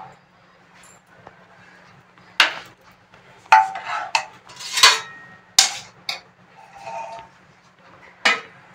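A metal ladle knocking and scraping against a pressure cooker and a steel plate as khichdi is served out, a string of irregular metallic clinks and scrapes. A faint steady low hum runs underneath.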